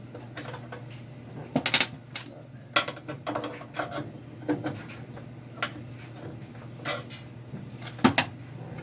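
Metal tools and hinge parts clanking and scraping irregularly as a spring-loaded hatch hinge is levered against its torsion bar. The clanks are loudest about two, three and eight seconds in, over a steady low hum.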